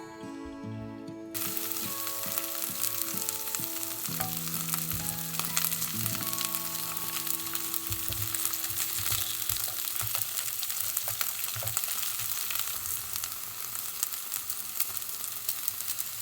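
Food frying in hot oil in a pan: a steady, dense sizzle with many small crackles, cutting in suddenly about a second in. Soft music plays under it for the first half.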